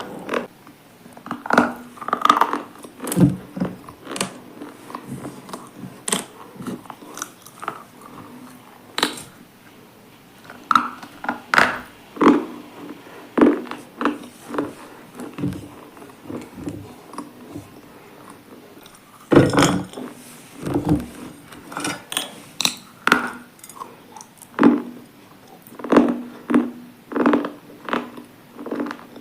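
Close-up crunching of a hard, brittle, chalky item being bitten and chewed: irregular sharp crunches, sometimes several in quick succession, with a faint steady hum underneath.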